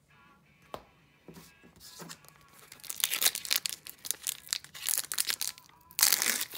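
Foil wrapper of an Upper Deck hockey card pack being torn open and crinkled by hand. After a few faint clicks, a dense crackling begins about two seconds in and grows louder, breaks off briefly near the end, then comes back in a loud burst.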